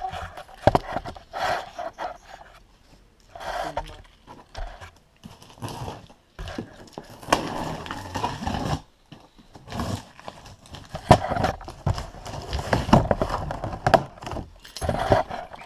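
A cardboard shipping box being opened and its packaging handled: irregular bursts of tearing, scraping and rustling with sharp knocks, broken by short pauses.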